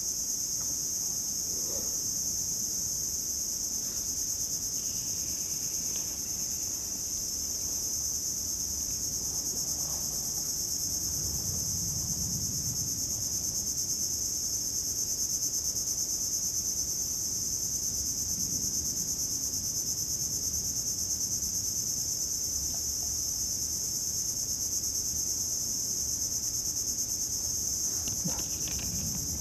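Chorus of insects giving a continuous, high-pitched shrilling that holds steady without a break.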